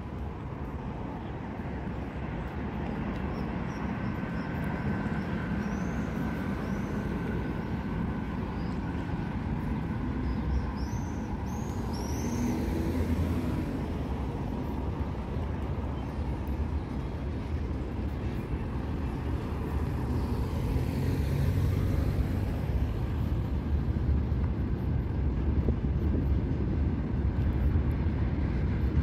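City street traffic with the low rumble of a freight train crossing a railway bridge, growing louder in the second half. A few short high chirps come in the first half.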